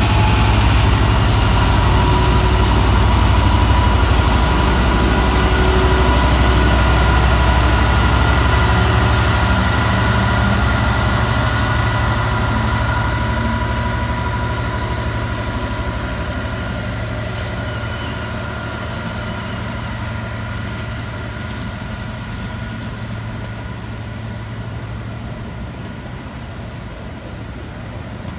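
Class 66 diesel-electric locomotive's EMD two-stroke engine running as it hauls a container train past, a loud low drone with a steady whine above it. The drone fades over the first ten seconds or so, leaving the rumble of container wagons rolling by, slowly dying away.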